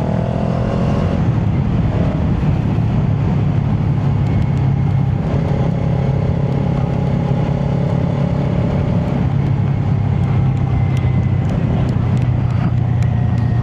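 Kawasaki Ninja 400 parallel-twin engine through an aftermarket Yoshimura exhaust, running under way at fairly steady revs, its pitch shifting slightly a few times.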